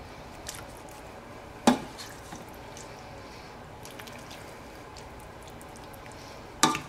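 A serving spoon scooping chunky tomato sauce out of a stainless steel pot and spooning it onto a plate of pasta: soft wet plops and drips of sauce, with two sharp knocks of the spoon against the dishes, one under two seconds in and one near the end.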